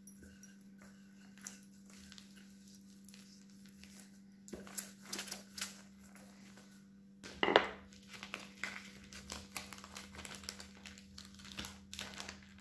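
Wooden rolling pin rolling pastry dough thin on a silicone baking mat: faint rustling and light knocks, with one louder knock about seven and a half seconds in.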